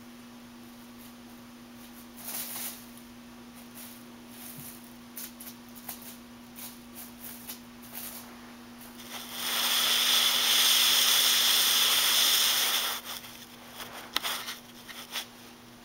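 Foil streamers crinkling and rustling in light scattered bursts as a kitten plays in them. About nine seconds in, a loud, close rustling noise lasts about three and a half seconds, as though right at the microphone. More scattered crinkles follow.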